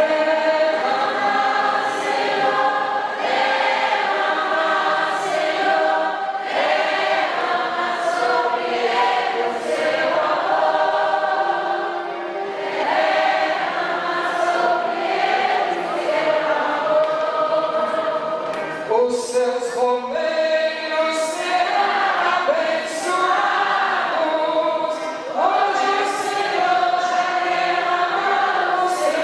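A large congregation singing a hymn together, many voices in one sustained melody.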